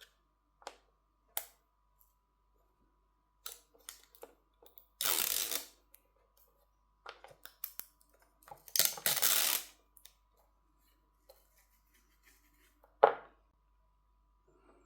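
Small clicks and taps of tools and phone parts being handled during smartphone reassembly, with two longer scraping noises of about a second each and one sharper tap near the end.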